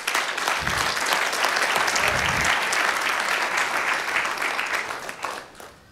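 Congregation applauding, dying away near the end.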